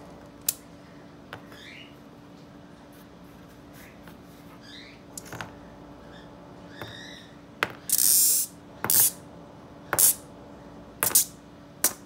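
Small magnet balls clicking and snapping together in a cardboard box. There are a few sharp clicks in the first half, then a run of louder snaps and rattles about a second apart.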